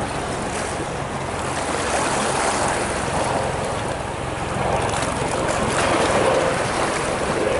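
Small waves washing and splashing against rocky breakwater boulders, swelling and easing, with wind buffeting the microphone.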